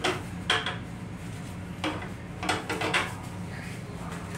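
Toilet paper being pulled from a railcar restroom's enclosed roll dispenser: a few sharp clacks and rattles from the dispenser and paper, the last ones bunched together around three seconds in, over a steady low hum.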